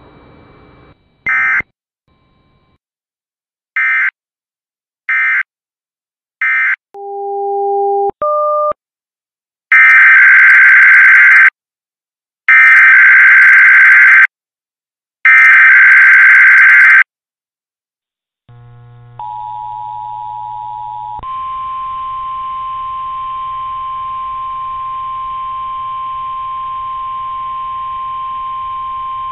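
NOAA Weather Radio alert signalling. First come three short buzzy EAS/SAME end-of-message data bursts that close one station's weekly test, then two short plain beeps. Next come three longer, louder SAME header bursts about a second apart, starting the next station's required weekly test. After them, about two seconds of the two-tone EAS attention signal give way to the steady 1050 Hz NOAA warning alarm tone, held for about nine seconds over a low hum.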